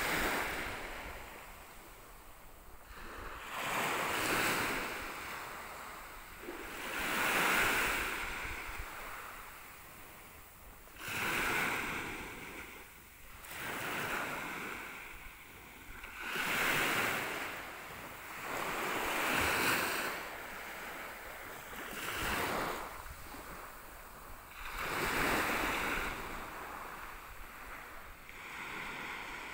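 Small waves washing onto a sandy beach, a rush of hiss that swells and fades about every three seconds.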